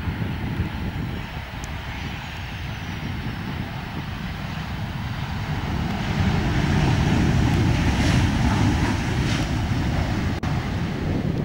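Jet engines of a Boeing 737 airliner landing: a steady rumble and rush as it comes in and touches down, growing louder about six seconds in as it rolls along the runway. The sound briefly drops out near the end.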